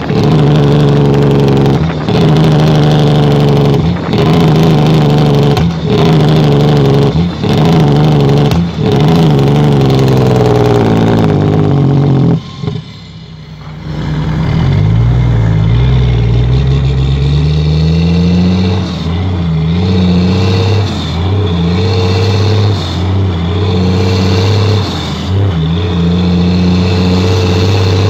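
International 9300 truck's diesel engine pulling hard through a run of quick upshifts, its note climbing and breaking off every second or two. About thirteen seconds in it drops away briefly, then comes back lower and climbs slowly, with short dips at each further shift.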